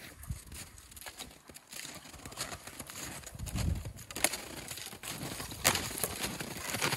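Snowshoe footsteps crunching in deep snow while a cut young tree is dragged along behind, its trunk and branches scraping and brushing over the snow. The crunches come unevenly and grow louder in the second half.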